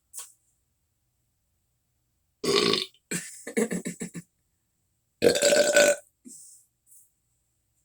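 Loud belching: a burp about two and a half seconds in, a run of shorter pulses after it, and a longer, louder burp about five seconds in.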